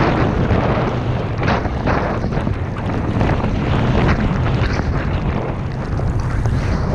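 Wind rushing over a GoPro's microphone during a fast downhill ski run, a heavy steady rumble. Over it, skis hiss through the snow, swelling in brief surges with the turns.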